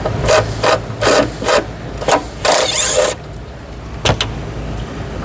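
Hand-tool work on car parts: a run of short rasping, ratchet-like strokes, about six in three seconds, then a single sharp click about four seconds in.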